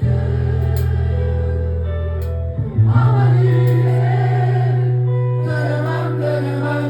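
Live band music with long held low bass chords that change twice, and voices singing over them.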